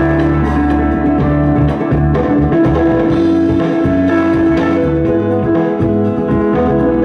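Recorded music from an MP3 player played through a TPA3116D2 mono Class D amplifier board into a speaker, running steadily at a fairly high volume. The treble is thin, which the owner hears as the amplifier's lack of high end.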